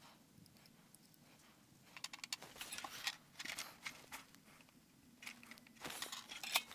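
Faint, irregular clicking and crackling of hand soldering on a printed circuit board: the iron and solder wire working the capacitor's lead joints, with flux spitting as the solder melts. It starts about two seconds in.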